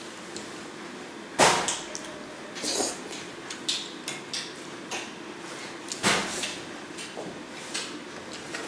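Close-up eating sounds: two loud slurps of hot food about a second and a half in and again about six seconds in, with smaller clicks of chopsticks on the bowl and chewing in between.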